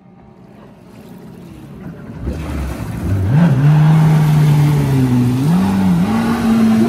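Stand-up jet ski engine throttling up as it pulls away from the shore. The sound builds over the first couple of seconds; then, about three seconds in, the engine revs hard, its pitch climbing and stepping up and down with the throttle.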